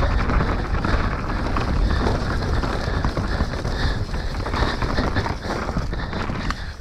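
Mountain bike descending a rough enduro trail: wind rushing over the microphone and tyres rolling over dirt and rocks, with many quick knocks and clatters from the bike over bumps.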